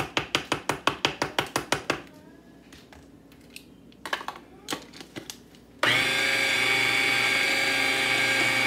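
Rapid, even knocking at about six strokes a second for the first two seconds, then a few scattered clicks. About six seconds in, the motor of a small electric countertop kitchen appliance switches on and runs steadily, mixing the deviled-egg filling.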